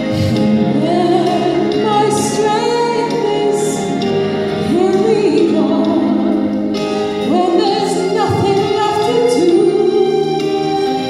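A woman singing a slow melody with long, wavering held notes over steady sustained accompaniment.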